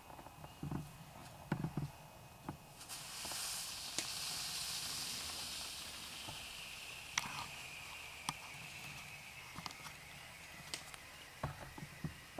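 Brothers Fireworks 'Dark Science' fountain firework catching about three seconds in and spraying sparks with a steady hiss, a faint tone in it that slowly falls in pitch, and scattered sharp pops.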